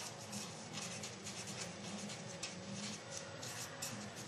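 Felt-tip marker writing on paper: a run of short, scratchy pen strokes over a steady low hum.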